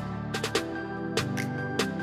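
Background music with a steady electronic beat and sustained synth notes.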